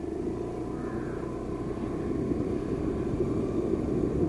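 Suzuki Access 125 scooter's single-cylinder four-stroke engine running under way over a rough, potholed dirt road, with a steady rumble from the ride that grows slowly louder.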